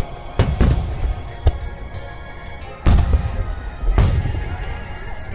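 Aerial fireworks shells bursting in a string of sharp booms, the loudest about three and four seconds in, with music playing underneath.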